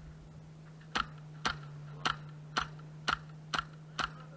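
Airsoft gun firing single shots, eight sharp pops about two a second, starting about a second in.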